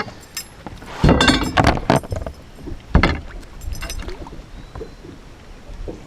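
Knocks and rattling on a fishing boat as a just-caught bass is handled and laid on a measuring board: a burst of clattering knocks about a second in, one sharp knock about three seconds in, then quieter handling noise.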